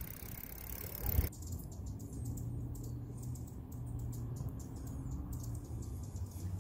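Hummingbirds hovering at a nectar feeder: a steady low wing hum with many quick, faint high clicks. It begins abruptly about a second in, after a moment of open outdoor noise.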